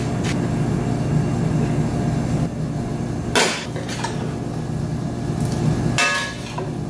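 A pepper mill gives a last grinding click or two at the start, over a steady low kitchen hum. A metal spoon then knocks against a stainless steel pot twice while scooping pasta: once sharply about three and a half seconds in, and again near the end with a brief metallic ring.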